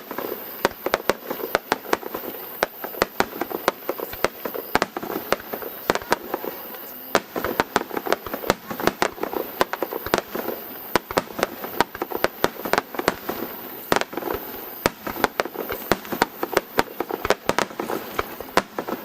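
Fireworks display: a rapid, continuous barrage of sharp bangs and cracks, several a second, from shells launching and bursting.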